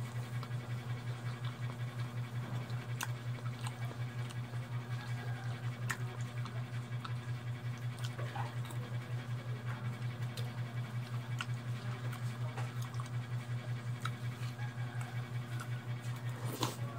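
A steady low hum that pulses evenly, about four times a second, with a few faint clinks of a metal spoon against a ceramic bowl. Near the end comes a short slurp of noodles.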